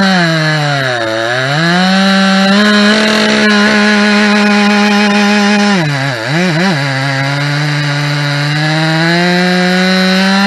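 Two-stroke chainsaw, freshly rebuilt or ported and running a bit rich on its first tank, cutting old oak. It screams at high revs, drops briefly about a second in, then drops again and wavers around six seconds. It pulls down to a lower steady pitch under load in the cut and climbs back toward full revs near the end.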